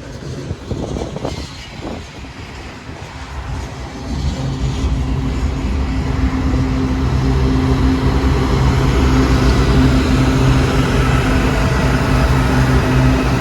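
Freight train rolling past with some wheel clatter, then a diesel locomotive's engine drone comes in about four seconds in, grows louder and holds steady.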